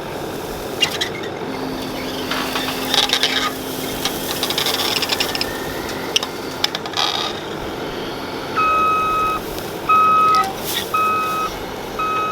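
Heavy machinery running with scattered rattles and clanks, then a reversing alarm beeping steadily, about once a second, four times in the last few seconds.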